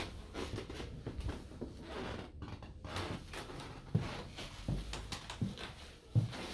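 Scattered soft knocks, clicks and low thumps at an irregular pace, the kind of handling and moving-about noise made while walking a camera through a room.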